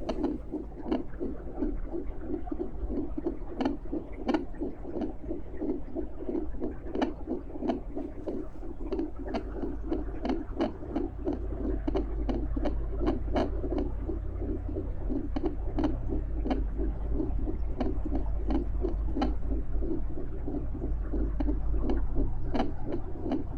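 Fetal Doppler heartbeat: a fast, even, whooshing pulse over a steady deep rumble that swells about halfway through, with scattered faint clicks.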